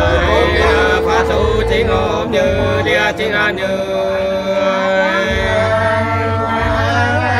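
Nùng sli folk singing: voices hold long, wavering notes that slide from pitch to pitch, over a low rumble that drops out for a couple of seconds midway.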